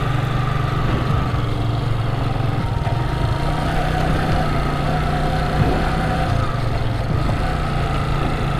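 A vehicle engine running steadily at an even speed.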